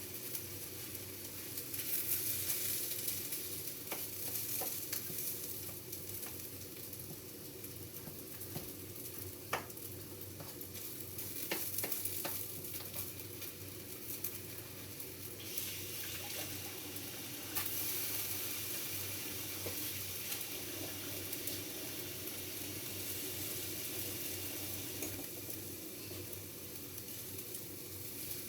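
Rice and vegetables sizzling as they stir-fry in a pan, with a few sharp clicks of a utensil against the pan.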